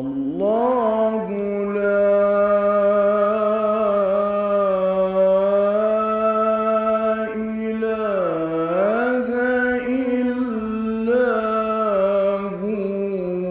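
A male Quran reciter's solo voice in the ornamented mujawwad style, holding one long melismatic note. The pitch rises as it begins, dips and climbs back about eight seconds in, and the note stops after about thirteen seconds.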